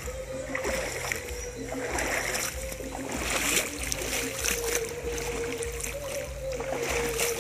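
Feet wading through a shallow, rocky river, with irregular splashes over the steady rush of the flowing water.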